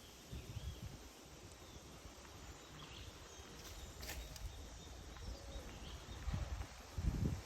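Outdoor ambience with a few faint, short bird chirps scattered through it. Low rumbling gusts of wind on the microphone come in just after the start and again near the end.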